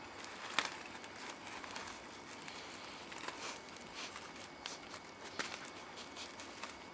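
Dry straw of a woven straw hat rustling and crackling as the hat is waved and batted by a cat, with soft scuffs on the bedding and a sharper crackle about half a second in.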